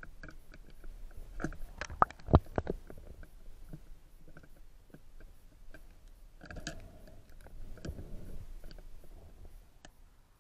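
Muffled underwater handling noise from a freediver's gear: scattered clicks and knocks on the camera housing and speargun, with two sharp knocks about two seconds in. Low rumbling swishes of water come and go.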